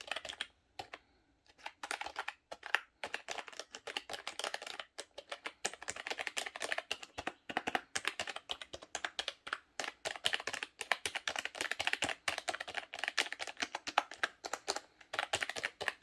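Typing on a Logitech G213 gaming keyboard with its membrane-based Mech-Dome keys: rapid, uneven key clicks with a short pause about a second in.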